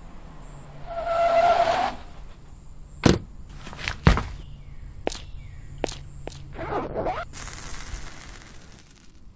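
Old farm truck pulling up with a brief, loud tyre squeal, its engine idling low underneath. Then two sharp, heavy thumps about three and four seconds in, followed by several lighter knocks and scuffs.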